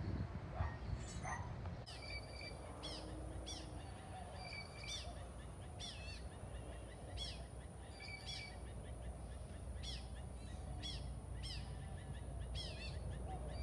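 A bird calling over and over from about two seconds in: short chirps roughly one and a half a second, some flat and some with a rising hook, over low background noise.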